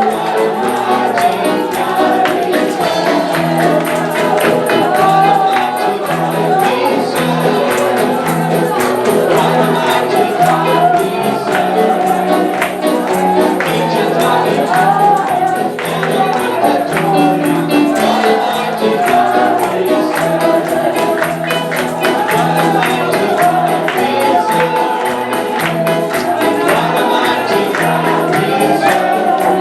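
Live gospel worship music: voices singing together over a band with a low bass line and a tambourine shaking a steady beat.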